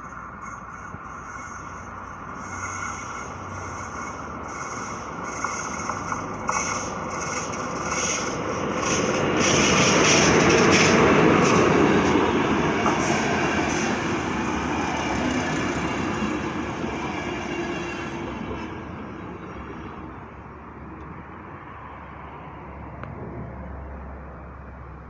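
Passenger train hauled by an electric locomotive passing over a level crossing. Its noise builds to a peak about ten seconds in and fades away by about twenty seconds. Under it the crossing's electronic warning bell (AŽD ZV-02) rings in repeated strokes.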